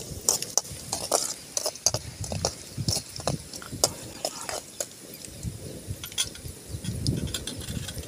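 Slotted metal spoon scraping and clicking against an aluminium kadai as dried red chillies are stirred and fried in oil over a wood fire, with a light sizzle; short sharp clicks and scrapes come irregularly throughout.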